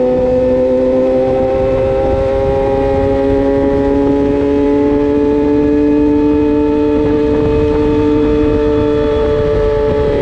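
A 600cc racing motorcycle's engine running at steady part throttle, heard from the bike itself. Its pitch climbs slowly for the first several seconds and eases off slightly toward the end, under a constant rush of wind noise.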